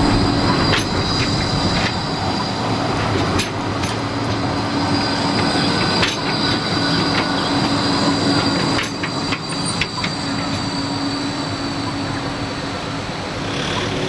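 Gold Coast G:link Bombardier Flexity 2 light-rail tram passing close by. It runs with a steady low hum and a high whine, and its wheels click sharply on the rails several times.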